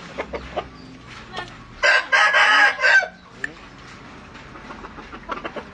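Rooster crowing once, a loud harsh crow of about a second starting about two seconds in, with soft clucks around it.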